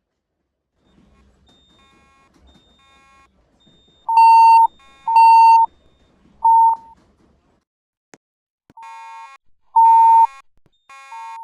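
Fire alarm evacuation tone sounding between voice announcements: beeps about half a second long, pitched near 1 kHz. Loud beeps from the nearer speakers come about a second apart, three of them around four seconds in, while fainter, out-of-step beeps come from other speakers further off.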